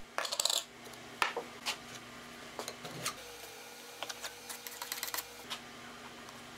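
Light clicks and taps of a metal wood-filler can, its lid and a putty knife as filler is worked into the voids of a plywood board, with a short cluster of clatter just after the start and scattered ticks after that.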